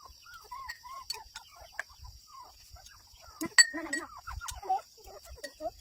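Chickens clucking in a string of short calls, with one sharp click about three and a half seconds in and a steady high hiss underneath.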